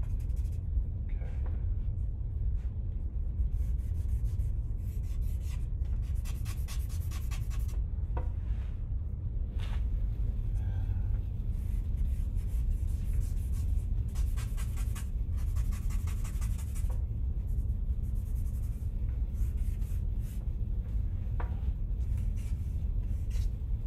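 Charcoal scratching and rubbing across drawing paper in bursts of quick strokes, over a steady low hum.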